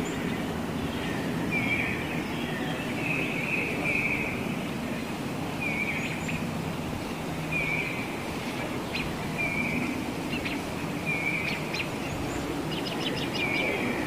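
A wild bird giving a short call over and over, about once every second or so, over a steady outdoor background noise; a few high, sharp ticks come in after the middle, with a quick run of them near the end.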